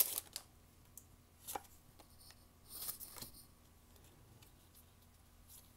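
Faint handling of an opened Pokémon booster pack: the foil wrapper crinkles briefly and the cards slide out, with a light click about a second and a half in.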